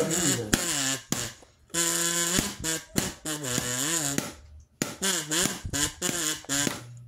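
A person's voice making wordless vocal sounds with wavering, bending pitch, in several short runs with brief pauses.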